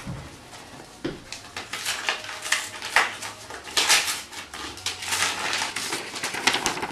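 Paper mail being handled and opened: a run of crisp rustles, crackles and rips from envelopes and sheets of paper.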